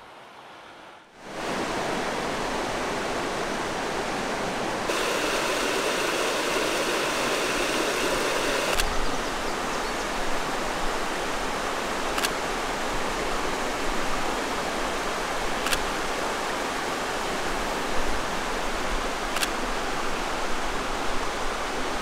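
Steady rush of creek water pouring over the rock ledges of a shut-in, starting about a second in, its tone brightening for a few seconds and then settling; a few faint clicks in the second half.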